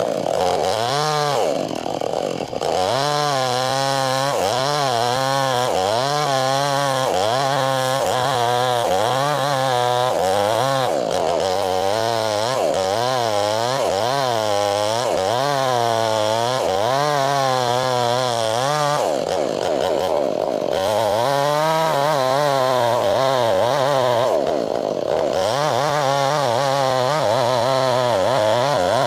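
Chainsaw running under load while ripping through wood. Its engine pitch rises and falls about once a second as the cut loads and eases, and it sags briefly a few times.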